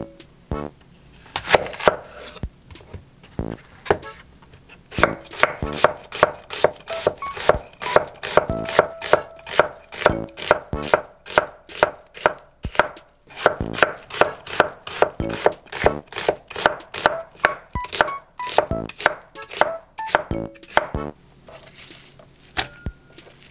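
Kitchen knife slicing a peeled onion on an end-grain wooden cutting board: repeated blade knocks on the wood, a few spaced strokes at first, then a steady run of about two to three a second that stops a couple of seconds before the end.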